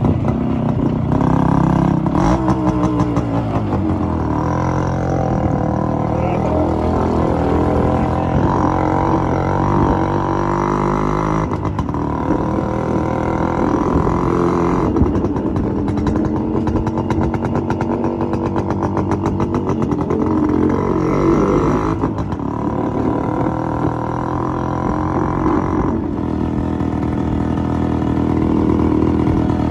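Yamaha RX100 two-stroke single-cylinder motorcycle engine running while being ridden, its pitch rising and falling with the throttle.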